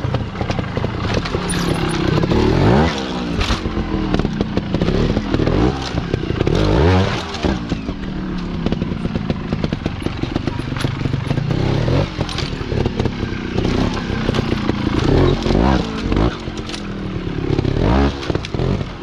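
Sherco trials motorcycle engine blipped over and over, its revs rising sharply and dropping back every second or two as it climbs rock steps, with sharp knocks of the bike on the rock.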